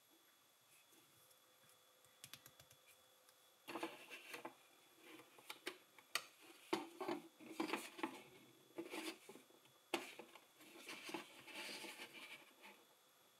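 Plastic LEGO bricks being handled and snapped together: a few light clicks, then from about four seconds in a busy run of clicking, clattering and scraping that stops near the end.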